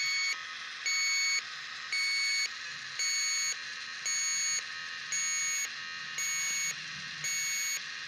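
Electronic refrigerant leak detector (sniffer) beeping steadily, about one half-second beep per second, over a steady hiss.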